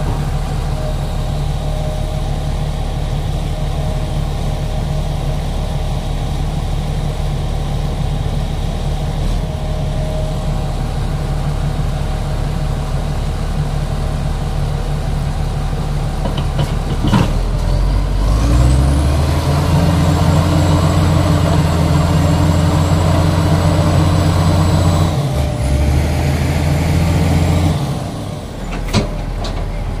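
Heavy diesel engines of a bogged Komatsu D85ESS bulldozer and a Sany SY215C excavator recovering it: a steady low running, then a little past halfway an engine revs up and holds high under load for about ten seconds before dropping back. A sharp clunk comes just before the rev-up and another near the end.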